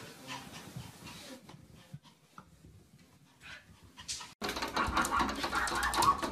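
Faint soft thumps of a small animal hopping down carpeted stairs. About four seconds in, an abrupt, much louder run of rapid clicking and scraping begins as a dog paws and scrabbles at a glass sliding door.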